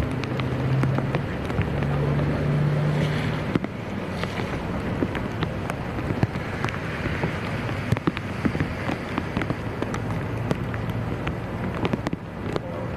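Outdoor wind on the microphone over floodwater, a steady rushing haze with scattered small clicks and pops. A low steady hum, like a distant engine, sounds in two short stretches during the first few seconds.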